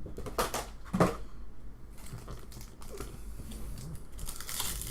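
Plastic and cardboard packaging of a trading-card box crinkling and rustling as it is handled, with a few short sharp clicks, the loudest about a second in.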